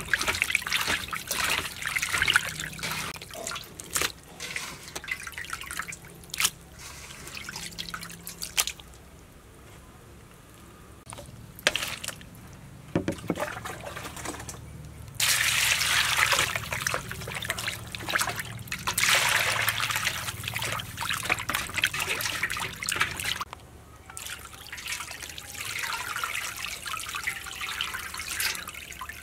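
Water splashing and trickling as raw chicken gizzards are rubbed and washed by hand in a bowl of water, then a stream of water running onto them in a plastic colander. Louder, steadier water noise in the middle.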